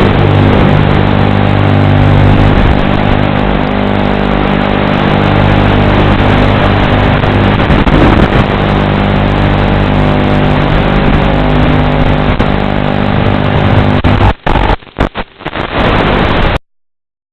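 FPV racing quadcopter's electric motors running over a steady hiss, their pitch rising and falling now and then. Near the end the sound breaks up several times and then cuts off suddenly.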